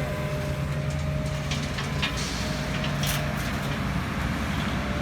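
Heavy diesel engine of construction machinery running steadily, with a few short hisses in the middle.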